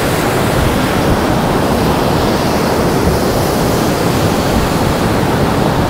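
Ocean surf breaking and washing below a fishing pier, a steady rush of water, with wind on the microphone.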